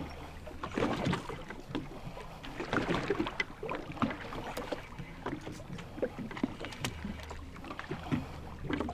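Water splashing and lapping against a boat's hull in uneven bursts, with a low steady hum of the boat's idling engine at the start and again from about seven seconds in.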